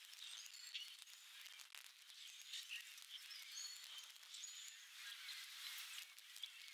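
Faint background hiss with several short, high chirps from distant small birds scattered through it.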